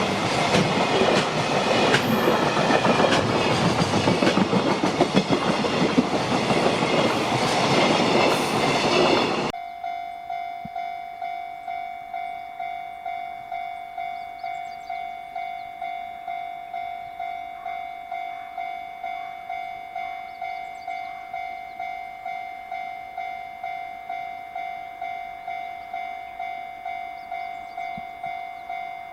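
A freight train running past close by, a loud rumble with wheel clatter, cut off suddenly about a third of the way in. Then a Japanese level-crossing alarm sounding: a steady electronic ding repeating evenly and rapidly.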